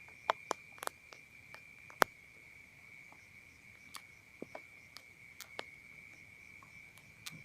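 Insects, crickets by the sound of it, trilling in one steady, unbroken high note over a rice paddy at night, with scattered sharp clicks and taps, the loudest about two seconds in.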